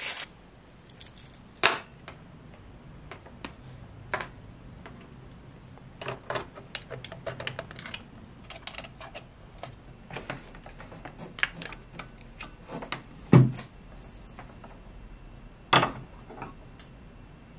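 Scattered small clicks, taps and rattles of a soldering iron, its cable and connector being handled and set up on a desk, with a few louder knocks.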